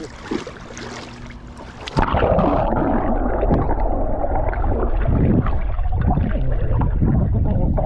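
A camera microphone dipping underwater in a cold-water swimming pool: about two seconds in, the open-air sound cuts to a loud, muffled underwater rumble and gurgle.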